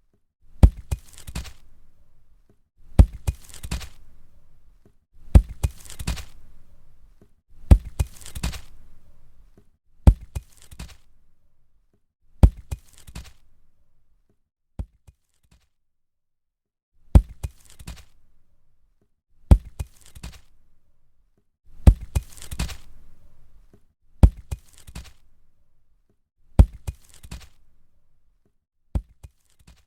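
A concrete block falling onto the ground, over and over: each drop is a heavy thud followed by a few smaller knocks as it settles. The drops come roughly every two and a half seconds, about a dozen in all, with a longer pause around the middle.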